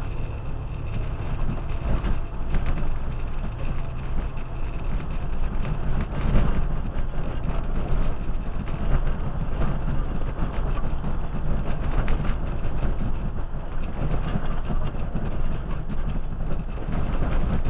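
4x4 SUV driving slowly over a rough dirt trail: a steady low rumble from the engine and tyres, with scattered knocks and rattles from rocks and the body.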